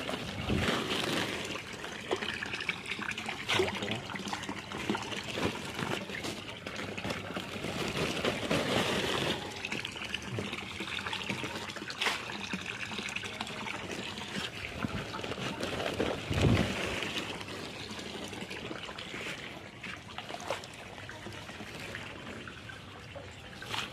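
Water trickling and splashing unevenly, with scattered small splashes and one louder splash about sixteen seconds in.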